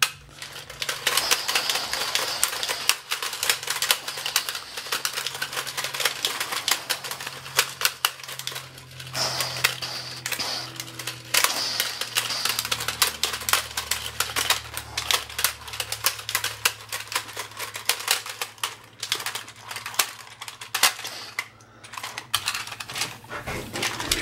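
Two-player Iron Man vs Hulk Superhero Slam fighting toy clacking rapidly as its plastic punch controls are mashed, a dense run of clicks with a few brief pauses, over a faint steady low hum.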